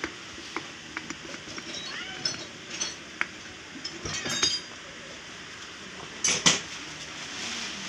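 Light metallic clinks and taps as motorcycle engine parts are handled and fitted by hand, with two sharper knocks about six seconds in.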